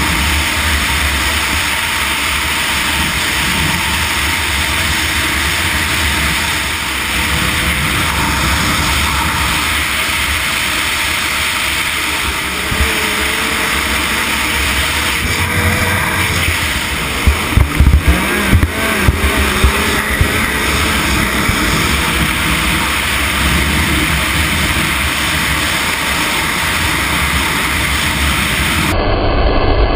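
Yamaha Nytro RTX snowmobile's four-stroke three-cylinder engine running hard at speed, heard from the sled with heavy wind on the microphone. A run of sharp knocks comes a little past the middle, and the sound changes abruptly just before the end.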